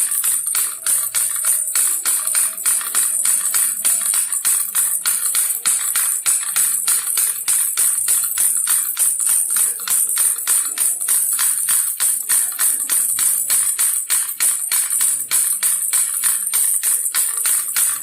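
Baby rattle shaken in a steady rhythm, about four shakes a second, its sound mostly high-pitched.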